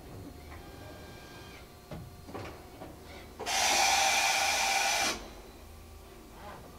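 Mori Seiki NH4000 DCG machining center's automatic tool changer at work: a few short clunks, then a loud hiss of air for about a second and a half that starts and cuts off abruptly.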